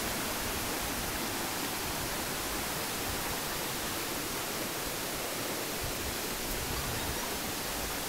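Steady, even rush of falling water from a waterfall and small cascades tumbling over boulders.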